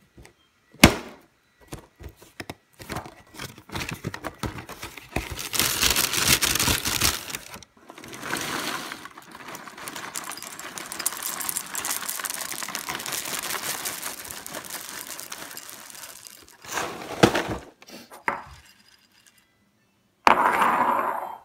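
Dry cereal, Cap'n Crunch's Crunch Berries among it, poured from the box into a ceramic bowl on a stone counter: knocks and clinks as bowl and box are handled, then a long rattling rush of cereal pieces into the bowl, with a shorter louder rush near the end.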